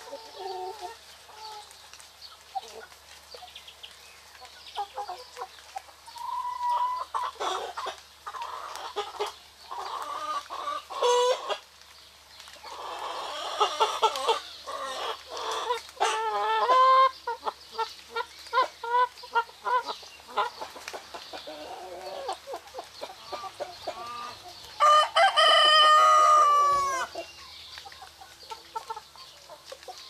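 Chickens calling: hens clucking on and off throughout, with a longer run of loud calls about halfway through, and a rooster crowing once near the end, the loudest sound.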